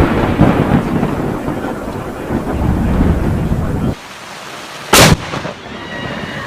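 Thunder rumbling heavily, easing a little, then cutting off about four seconds in. About a second later comes a single sharp, very loud crack of a close thunderclap.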